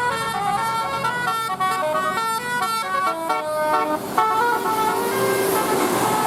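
Bus 'telolet' musical air horn (a Basuri horn set) playing a fast melody of short stepped notes. It stops about four seconds in and gives way to a noisier stretch with a few held tones.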